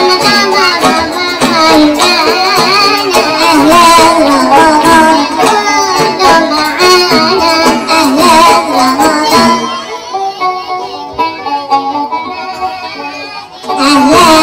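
Traditional-style Egyptian folk music with high-pitched cartoon-like singing. It drops quieter for a few seconds about ten seconds in, then comes back loud near the end.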